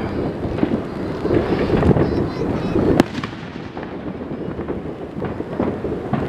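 A barrage of fireworks: overlapping bangs and crackles, one after another, with one sharp loud bang about three seconds in.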